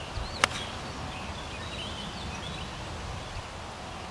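Golf iron striking the ball on a full swing: one sharp crack about half a second in. Birds chirp in the background.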